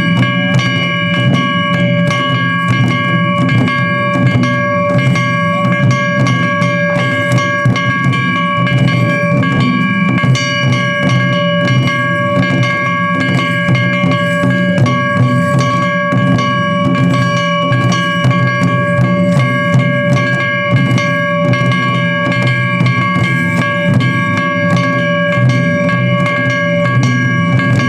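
Japanese taiko drums beating in a rapid, continuous rhythm, over a steady held tone.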